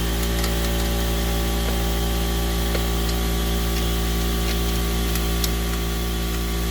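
A motor running at a steady, unchanging speed with a low hum, having started up abruptly just before. A few faint ticks sound over it.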